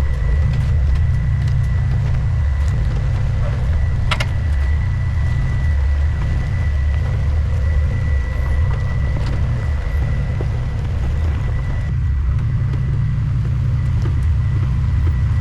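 GMC Safari 4x4 van's engine running at low speed as it crawls over a rocky trail, a steady low rumble with a thin high whine running through it and a sharp knock about four seconds in.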